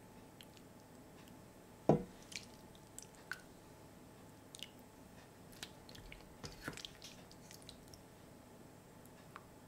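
Chicken and mushroom stew being spooned into a ceramic bowl with a silicone spoon: soft wet squishes and drips. One dull knock about two seconds in, then scattered small clicks.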